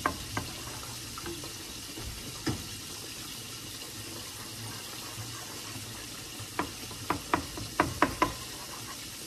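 Wooden spoon stirring a pot of melting cheese sauce, knocking against the side of the metal pot: a few single knocks, then a quick run of them near the end, over a steady hiss.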